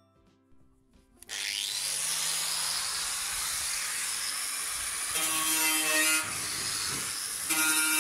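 Corded angle grinder starting up about a second in with a short rising whine, then running against the rusty steel wheelbarrow tray to strip the rust. A louder ringing tone joins in twice in the second half.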